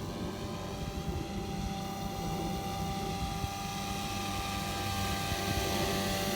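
Radio-controlled Agusta A109 scale helicopter on SAB Goblin 420 mechanics running, a steady whine from the electric motor and gears over the chop of the rotor blades, growing a little louder toward the end.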